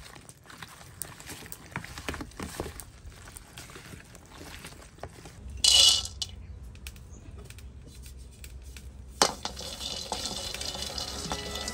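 Soft squishing and clicking of raw pork being kneaded with seasoning by a rubber-gloved hand in a plastic bowl. About halfway through, a brief loud rattle as raw peanuts are poured into a dry steel wok, then wooden-stick stirring in the wok with one sharp knock near the end.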